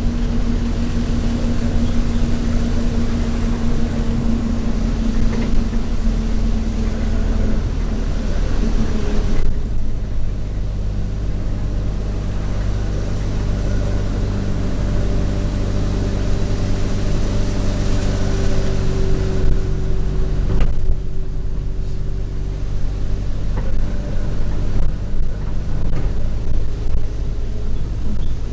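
Alexander Dennis Enviro200 bus with an Allison automatic gearbox under way: its diesel engine runs steadily, and its note changes about a third of the way through. Soon after, a thin, high-pitched turbo whine comes in and holds steady until near the end.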